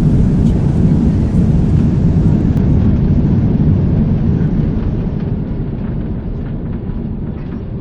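Jet airliner noise: a loud, steady low rumble of engines and rushing air that slowly dies down over the last few seconds.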